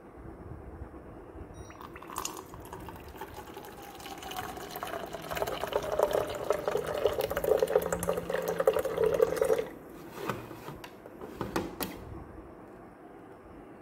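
Water being poured into a container for about eight seconds, its pitch falling as it goes, then stopping suddenly; a few light knocks follow.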